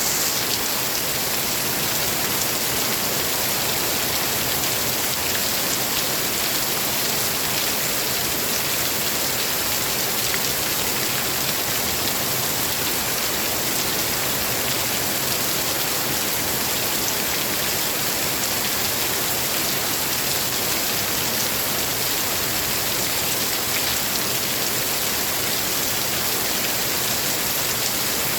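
Steady rain falling, an even, dense hiss with fine patter of individual drops, unchanging throughout.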